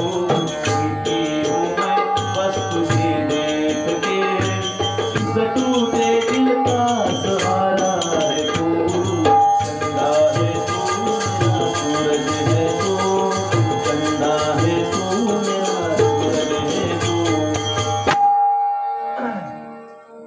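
Bhajan music: tabla playing a steady beat under a jingling percussion rhythm and a melody line. It all stops suddenly near the end, leaving one held note.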